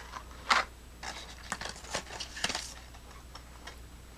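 A small cardboard flashlight box being opened and its contents handled: a handful of sharp clicks and rustles over the first three seconds.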